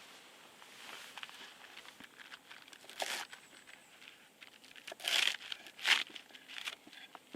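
Crinkling and tearing of some crinkly material being handled, in a few short bursts; the loudest come about five and six seconds in.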